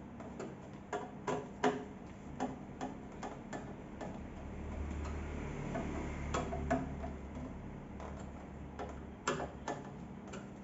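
Irregular clicks and ticks of a hand tool tightening the bolts on a belt sander under assembly, with a low rumble of handling about midway.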